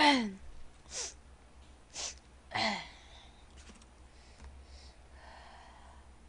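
A woman's wordless vocal sounds: a loud sigh falling in pitch as she stretches, two short breathy puffs, and a second falling sigh about two and a half seconds in.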